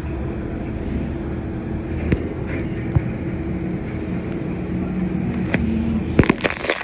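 Steady engine hum with a low drone that holds an even pitch, broken by a few faint clicks.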